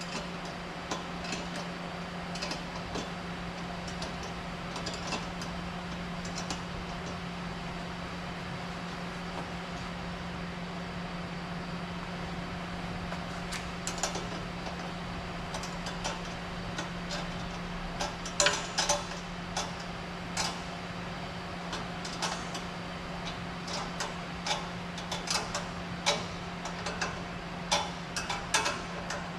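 Hand tools clicking and clinking on the metal of an exhaust system's fittings as they are tightened: scattered at first, coming thicker and louder in the second half. A steady low hum runs underneath throughout.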